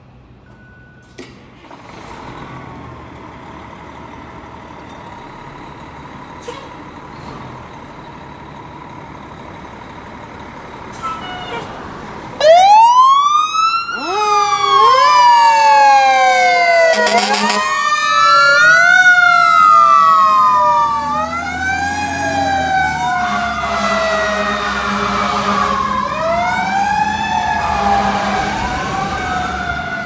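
Fire engine running in the firehouse bay, then about twelve seconds in its sirens start: loud wailing tones that rise and fall in long, overlapping sweeps, with a short horn blast partway through.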